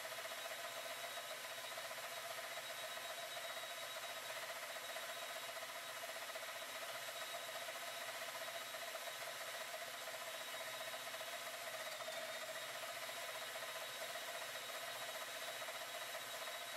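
Mechanical television's spinning scanning disc and its motor running at a steady speed: an even whir with a fixed mid-pitched hum and fainter higher tones.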